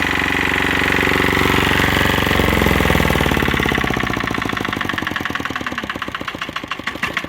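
Diesel engine of an Ammann AR65 roller running hard, then its revs falling away about three seconds in to a slow idle in which the separate firing beats are clearly heard. The engine is not yet fully warmed up.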